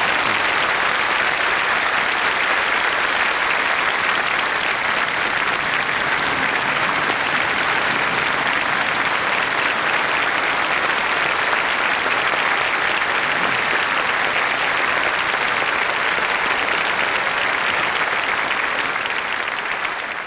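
A large congregation applauding steadily, easing off slightly near the end.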